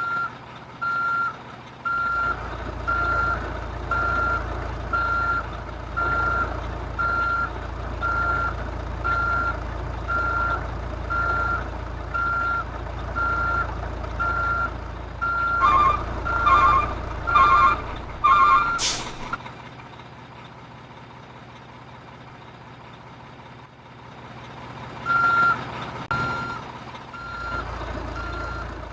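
RC dump truck's reversing beeper, one steady beep about every second over a low motor hum, from a truck backing up. A second, lower beep overlaps for a couple of seconds before both stop with a short rising sweep. The beeping resumes near the end.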